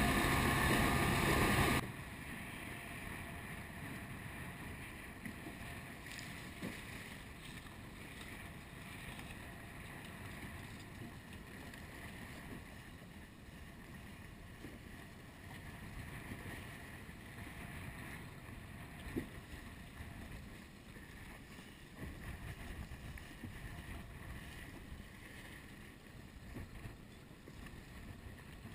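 A loud rush of wind and churning wake from a boat under way, which cuts off suddenly about two seconds in. After that, quieter wind buffets the microphone over choppy water lapping close by, with a few small splashes.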